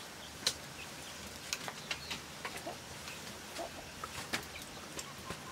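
Wood cooking fire crackling, with scattered sharp pops and clicks at irregular intervals, and faint clucking of chickens.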